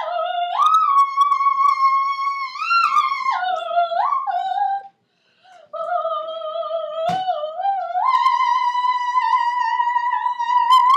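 A high voice singing long held notes without words, sliding up and down between pitches, with a short break about five seconds in and a click about seven seconds in.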